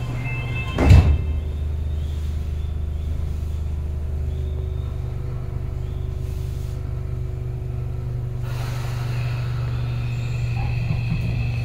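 Keio Line commuter train heard from inside the car by the doors: a steady low rumble and hum with faint steady tones above it. There is one short, loud thump about a second in.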